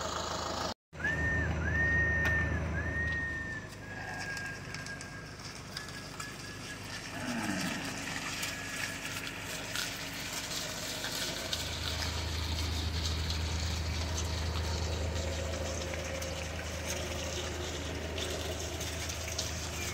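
A herd of Guzerat zebu cattle on the move along a gravel road, a steady shuffle of hooves and bodies. A few short high whistles come in the first few seconds, and a low motor hum joins in the second half.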